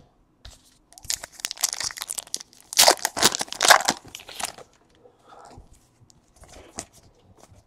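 Foil wrapper of a trading-card pack being torn open and crinkled, in a run of rough crackling rips for a few seconds, then lighter scattered rustles.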